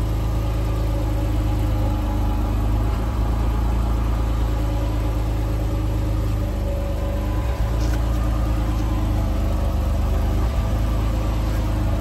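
Jeep Wrangler engine running steadily in gear, driving the rear Dana 44 axle with 5.13 gears while the wheels hang free on a lift.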